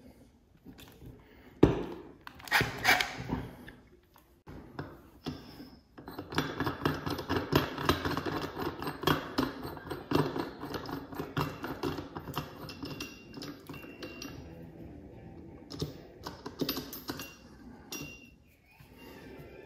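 Steel bearing separator and puller parts clinking and rattling against each other and the armature as they are fitted over the armature shaft to pull its bearing, with a sharp metal knock about two seconds in.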